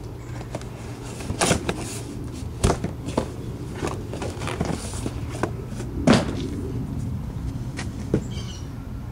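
Cardboard shipping box being tipped and handled, with irregular knocks, scrapes and rustles as its contents are worked out; the sharpest knocks come about a second and a half, two and a half and six seconds in.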